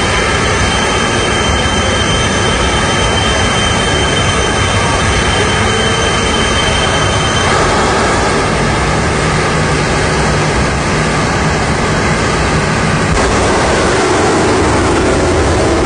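25,000 hp jet truck's jet engine running with its afterburner flaming: a loud, steady rush of noise with a high whine that stops about halfway through.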